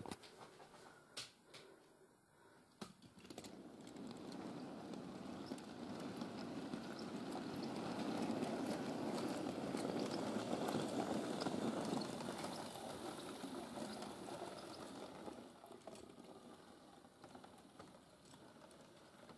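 OO gauge model goods train rolling past on its track, wheels clattering over the rails and rail joints, with a rumble that builds as the wagons pass close by and then fades. A few sharp clicks sound in the first few seconds.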